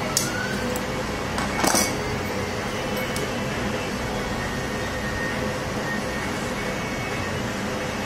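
A few light metallic clinks as a silver ring is handled on the workbench, the loudest a short rattle about one and a half seconds in, over a steady hiss.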